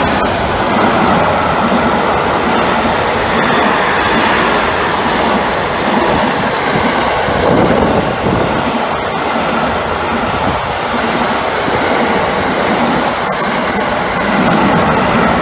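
A train passing close by, its wheels on the rails making a loud, steady rumble with clatter, and a brief high-pitched whine near the end.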